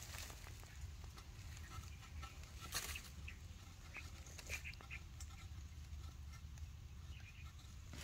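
A few faint, brief animal calls, short chirps clustered about halfway through, among light clicks and rustling and a low steady hum.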